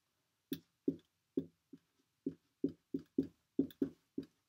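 Dry-erase marker writing numbers on a whiteboard: a string of about eleven short taps of the tip knocking against the board, irregular, two or three a second.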